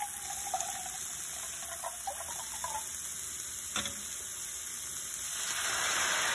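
Chicken broth trickling from a can into a glass measuring cup, then a sharp clunk as the can is set down. About five seconds in, the broth is poured into the hot skillet of mushrooms and gnocchi and starts sizzling, growing louder.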